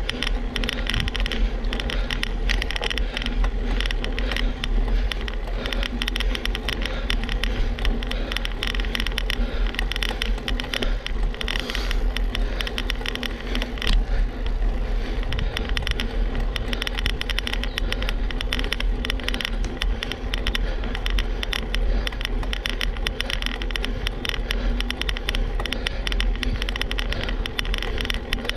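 Road bicycle ridden slowly on asphalt: steady tyre and wind noise with a dense rattling crackle and a low rumble.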